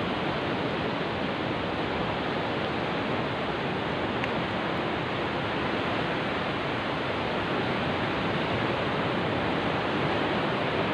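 Ocean surf breaking along a sandy beach: a steady, even rush of waves.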